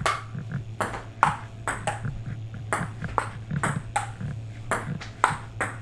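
Table tennis rally: the ball clicking sharply off paddles and bouncing on the table, about two or three clicks a second at an uneven rhythm, over a steady low hum.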